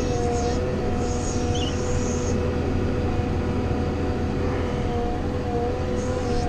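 A loader's diesel engine running steadily as the machine drives along, heard from inside the cab, with a steady whine over the engine.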